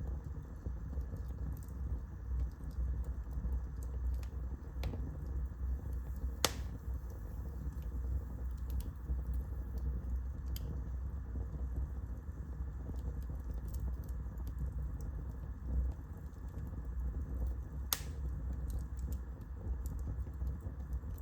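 Fire burning in a fireplace, crackling with scattered small pops over a low steady rumble of the flames. Two sharper, louder pops come about six seconds in and again near the end.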